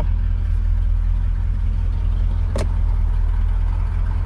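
1973 Corvette's L82 350 V8 idling, a steady low rumble heard from inside the cabin, with one sharp click about two and a half seconds in.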